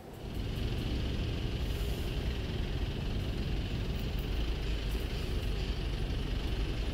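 Motor scooter running slowly in congested street traffic: a steady rumble of engines, heard from the rider's helmet camera.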